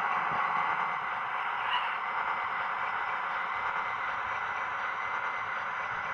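HO scale model train running on the layout: a steady whirring hiss with a faint high steady tone.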